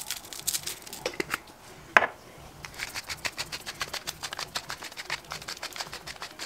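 A seasoning shaker shaken over raw chicken, then one sharp click about two seconds in. After it, a hand spice grinder is twisted: a quick, even run of crunching clicks, about three or four a second.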